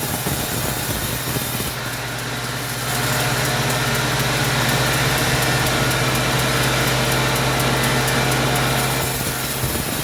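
Sawmill engine running steadily. From about three seconds in until about nine seconds in it grows louder and noisier as the saw cuts through wood.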